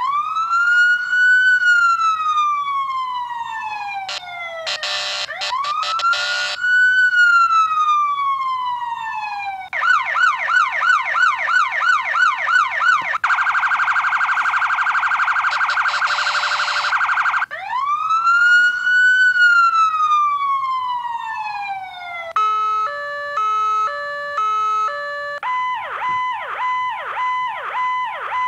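Whelen 295HFSA1 electronic siren running through its tones one after another. There is a slow wail that rises and falls, broken by a brief harsher blast about five seconds in, then a fast yelp about ten seconds in and a rapid warbling phaser. The wail returns, followed by a high-low alternating two-tone and a repeating chirping pattern near the end.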